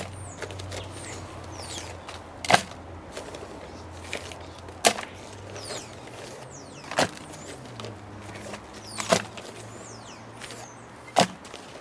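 Five sharp, brief knocks at an even pace of about one every two seconds, over birds chirping and a low steady hum.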